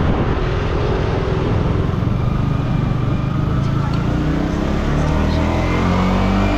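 Yamaha R15M's single-cylinder engine with its stock exhaust running under way, rising steadily in pitch through the second half as the bike accelerates, over a steady rush of wind and road noise.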